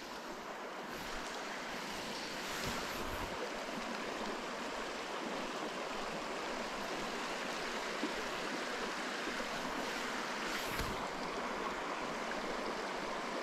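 A small mountain trout creek running over shallow riffles: a steady rush of water.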